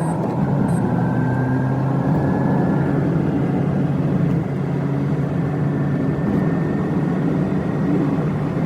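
Steady vehicle engine and road noise from a car travelling in city traffic, with a faint whine rising slowly in the first few seconds.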